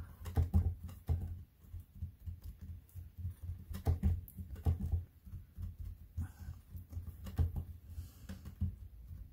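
Fingers pressing, squishing and tapping a block of polymer clay against a plastic cutting mat: irregular soft taps and light thuds, several a second.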